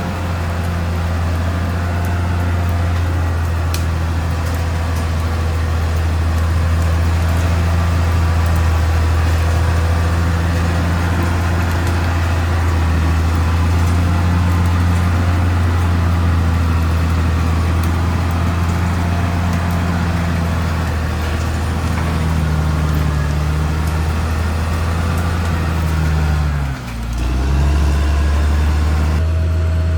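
Caterpillar D6R XL bulldozer's diesel engine running steadily at working revs. Near the end the engine note briefly drops and dips in loudness, then picks straight back up.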